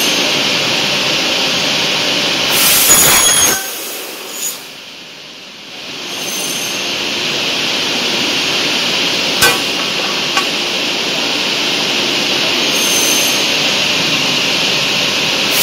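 Double-head aluminium cutting saw running, its circular blades giving a steady high whine. About three seconds in there is a louder screeching cut through aluminium profile. The machine then drops quieter for a couple of seconds and builds back up, with a sharp click near the middle.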